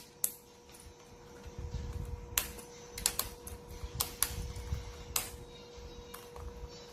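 Irregular light clicks and taps, a few seconds apart and sometimes in quick pairs, over a steady electrical-sounding hum.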